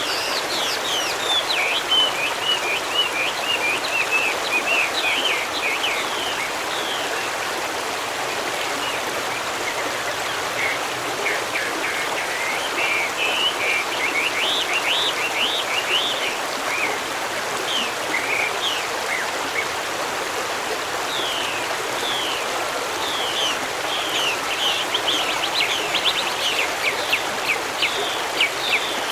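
Forest stream running steadily, with birds chirping over it in runs of quick, high notes that come thickest near the end.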